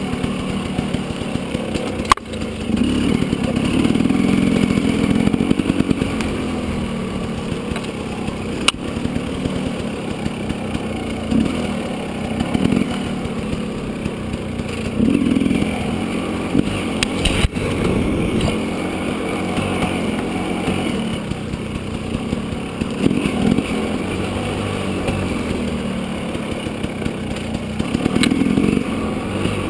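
Dirt bike engine running as it climbs a rough, brushy trail, the throttle opened and eased off again and again so the engine note swells and falls. A few sharp knocks are heard along the way.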